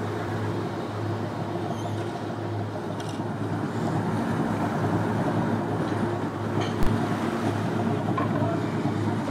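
A fishing boat's diesel engine running with a steady low drone. A single sharp knock sounds about seven seconds in.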